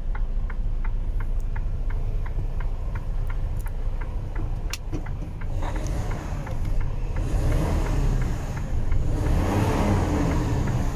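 A Mercedes-Benz Arocs 4142's straight-six diesel running, heard from inside the cab as a steady low rumble. A light, regular ticking comes about three times a second in the first half. The engine noise grows louder and fuller from about halfway through.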